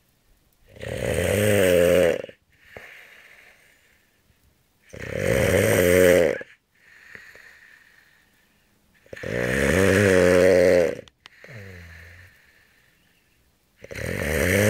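Snoring: a loud snore about every four seconds, four in all, each followed by a softer, falling breath sound.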